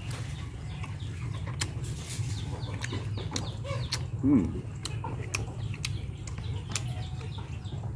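Chickens clucking in the background over a steady low hum, with scattered short clicks; one short cluck about four seconds in stands out as the loudest sound.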